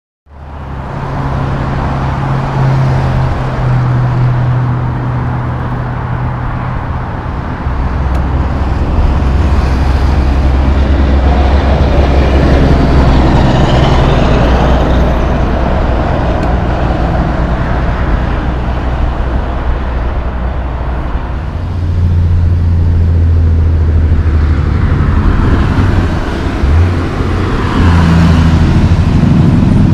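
Heavy diesel engines of Peterbilt Class 8 tractor-trailers running as the trucks pass along a highway, with tyre and traffic noise. The deep engine note shifts several times and swells louder about a third of the way in and again past two-thirds.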